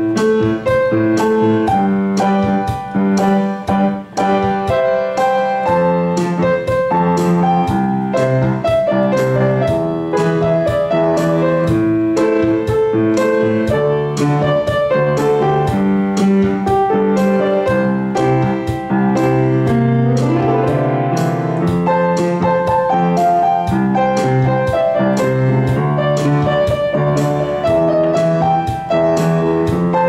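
Piano playing a pop-song melody in the right hand over a left-hand accompaniment of bass notes and chords in a steady boom-cha rhythm, with a quick rising run of notes about two-thirds of the way through.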